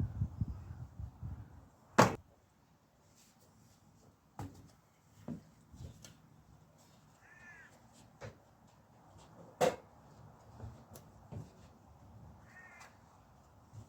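Scattered sharp clicks and knocks from fitting tyres onto bicycle wheels by hand, the loudest about two seconds in and another near ten seconds. Two short calls stand out, about seven and a half and thirteen seconds in.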